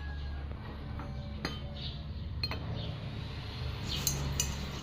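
Steel wrenches clinking against each other and against metal as they are handled: a few separate clinks, then a quick cluster near the end, over a low steady hum.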